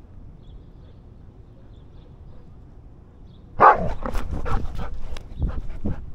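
A dog barking and vocalising in a sudden, quick irregular run of barks starting a little past halfway, as dogs meet and play close together.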